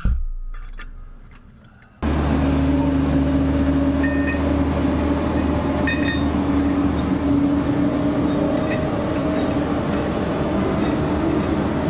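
Sound fading away over the first two seconds, then a steady machinery drone with a low hum cuts in suddenly and runs on, with two faint clinks a few seconds later.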